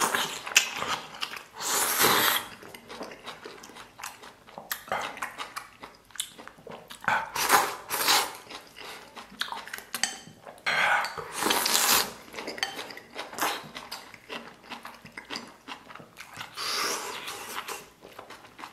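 A man slurping instant noodles and broth from a bowl in loud bursts of about a second, again and again, with chewing and the click of chopsticks on the ceramic bowl in between.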